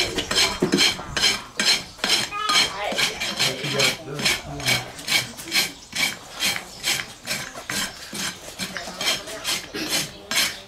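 Farrier's steel rasp filing a horse's hoof wall: a steady run of quick back-and-forth scraping strokes, two or three a second.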